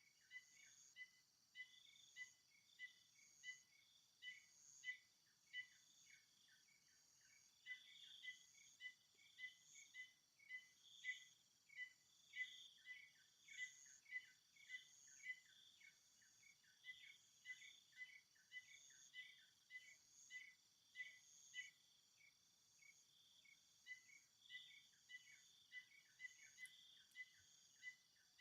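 Faint natural ambience of insects: a steady high-pitched drone with a short chirp repeating about twice a second.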